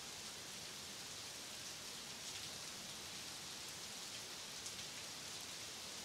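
Faint, steady hiss with no distinct events: a background noise bed with nothing else in it.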